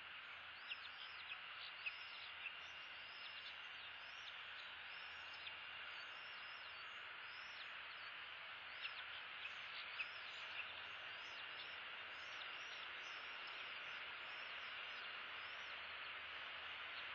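Outdoor ambience at a bald eagle nest: a faint, steady hiss with one steady high tone, dotted with many short, high, falling chirps. A few soft clicks come about a second in and again near the middle.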